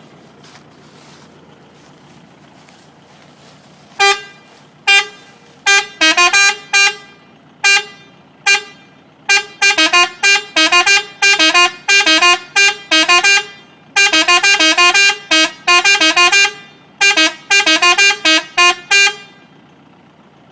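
Electric musical car horn driven by its controller module, playing a tune of short honking notes. The notes start about four seconds in and come singly and then in quick runs, several of them bending down and back up in pitch.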